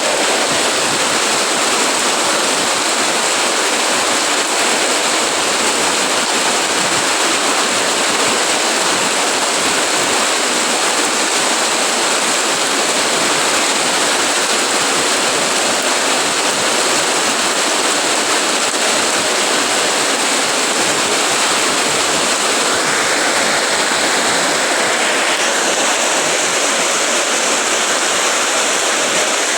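Heavy rain pouring down steadily, an even hiss with no thunderclaps.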